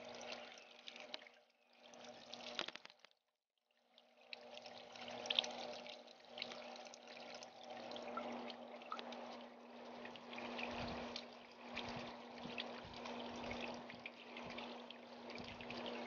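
Water trickling and splashing over the rocks of a small solar-powered garden fountain, with a steady low hum underneath. The sound cuts out for about half a second around three seconds in.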